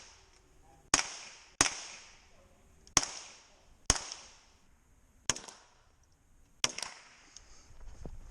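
Six single gunshots, spaced irregularly about a second apart, each trailing off in a short echo.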